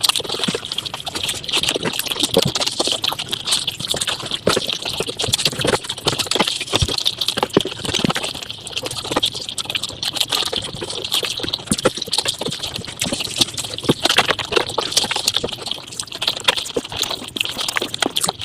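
Close-miked mukbang eating sounds sped up about five times: a rapid, unbroken stream of chewing, crunching and wet mouth clicks.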